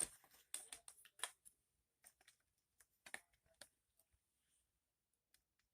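Faint irregular plastic clicks and rattles of a DVD case being handled, busiest in the first second and a half and then thinning out to a few isolated ticks.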